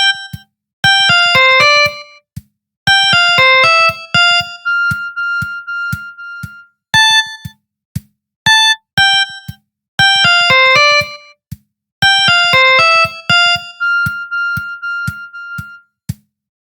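Samsung SGH-X540 polyphonic ringtone playing: a synth melody of quick beeping notes over a clicking drum beat. The phrase plays twice, each time ending on a long held note.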